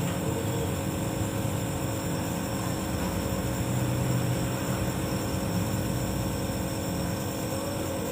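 Nebulizer compressor running with a steady hum.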